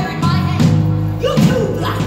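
Live rock music from a band, with electric guitar and bass held over a steady drum beat.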